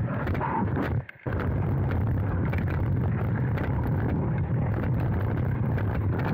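Ice-level hockey practice sound from a 360 camera at the goalie's pads: a dense low rumble with scattered clicks and scrapes of skates and sticks on the ice. The sound cuts out for a moment about a second in.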